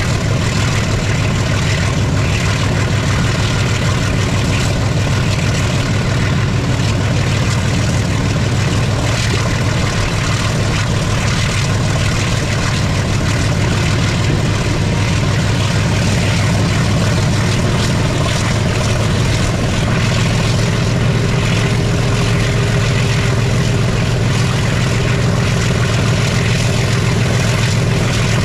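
ALCO HBU-20 diesel locomotive engine running steadily with a rapid, low chugging beat.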